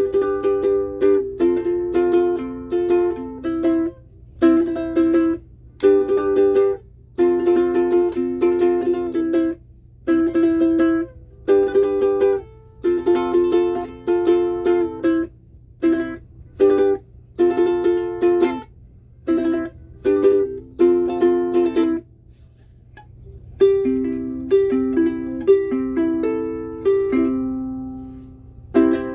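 Soprano ukulele built from a basswood DIY kit and strung with Aquila Nylgut strings, strummed in rhythmic chords with brief breaks. After a short pause about three-quarters of the way through it changes to a passage of picked notes left to ring.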